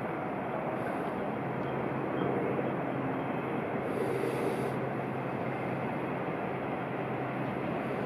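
Steady low rumble of an approaching freight train still out of sight, mixed with city background noise, with a brief high hiss about four seconds in.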